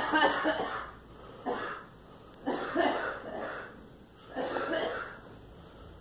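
Woman coughing in three short fits about two seconds apart, with a single smaller cough between the first two.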